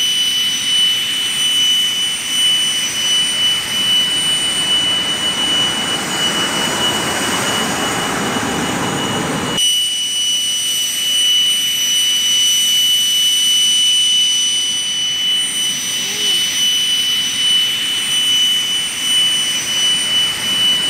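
Fouga Magister's twin Turbomeca Marboré turbojets running with a steady high whine. A rushing noise under the whine swells and then drops off abruptly about ten seconds in, leaving the whine.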